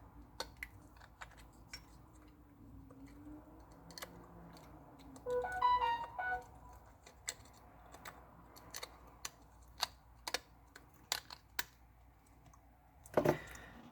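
Small sharp clicks and taps from handling and seating a smartphone's internal parts (motherboard, camera modules) in a plastic-and-metal frame. A brief pitched tone sounds about five and a half seconds in, lasting under a second.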